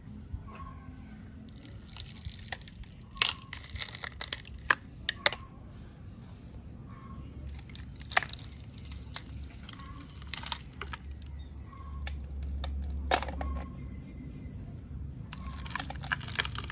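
Irregular crackling and crunching clicks, like something being crumpled or scraped, with a low rumble swelling for about a second and a half near the middle.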